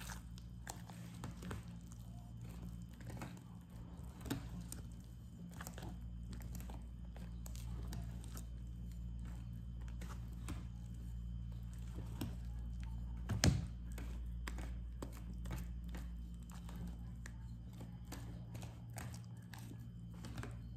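Spoon scraping and clicking against a plastic tub while cake batter is stirred, over a steady low hum, with one louder knock about thirteen seconds in.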